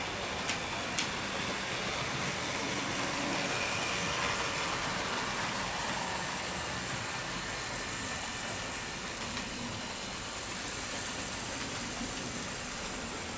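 HO-scale model trains running on the layout, a steady rolling whirr of wheels on track and motors, with two sharp clicks about half a second apart near the start.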